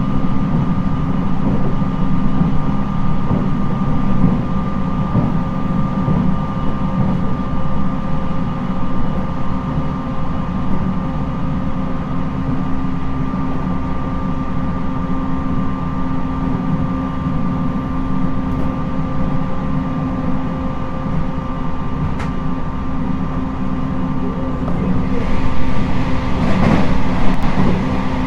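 Inside a JR East 719 series electric train running at speed: low wheel-on-rail rumble under a steady, jet-like whine from this unit's abnormal-noise car. The rumble grows louder and rougher about 25 seconds in.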